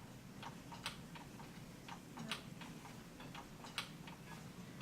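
Baby swing's mechanism clicking as it swings, a sharp click about every one and a half seconds with fainter clicks in between, over a low steady hum.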